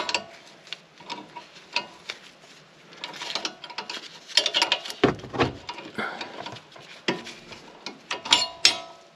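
Metal clicks and short scrapes of a box-end wrench and Allen key working loose the upper nut of a front sway bar end link, irregular, with a dull knock about halfway through.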